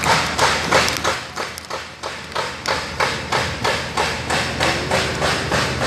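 An even run of sharp knocks or thuds, about three a second.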